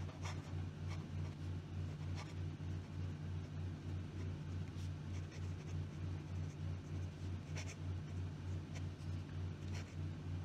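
Hero 565 fountain pen's fine nib writing on notebook paper: faint scratching of the pen strokes, with a little feedback but not scratchy. A steady, evenly pulsing low hum runs underneath.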